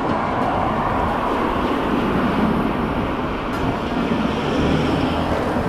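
Steady rush of wind and tyre noise from riding a Kaabo Wolf Warrior 11+ dual-motor electric scooter.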